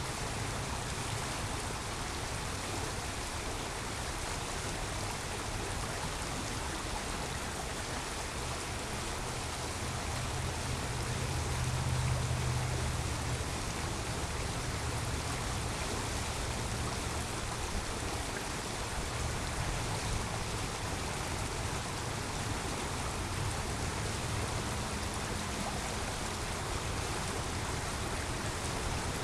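Creek water flowing with a steady rush, and a low rumble underneath that swells about ten to fourteen seconds in.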